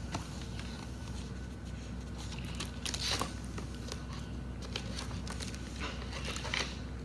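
Paper picture book being handled: soft rustles and small clicks, with a brief rustle about three seconds in and another near six and a half seconds, over a steady low hum.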